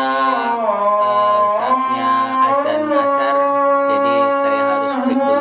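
Islamic call to prayer (adhan) from a mosque loudspeaker: a man's voice chanting long held notes that slide slowly between pitches.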